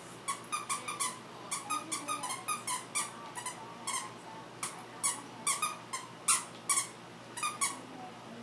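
A dog's squeaky toy squeaking over and over as a puppy chews it: short, pitched squeaks at an uneven pace of about three a second, some in quick pairs.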